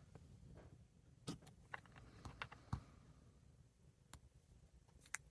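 Faint, scattered small clicks and taps of a padlock and its key being handled, about seven in all, irregularly spaced.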